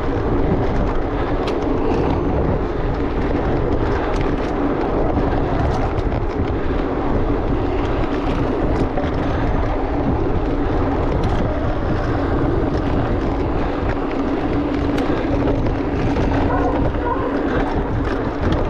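Steady rush of wind on an action camera's microphone over the rumble of an electric mountain bike's tyres rolling along a dirt singletrack, with scattered small ticks and rattles.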